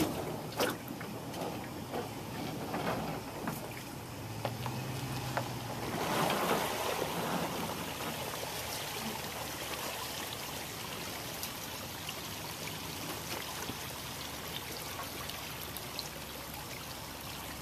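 Water trickling and washing along an aluminum boat hull as the boat slides off its trailer into the water, with a few knocks in the first four seconds and a swell of water noise about six seconds in. A brief low hum sounds about four seconds in.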